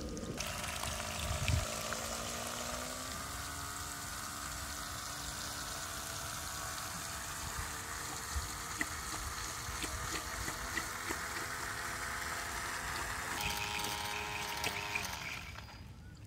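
Homemade mini water pump running: its small electric motor whines, rising in pitch over the first few seconds and then holding steady, while water pours and trickles through its hoses. Both stop near the end.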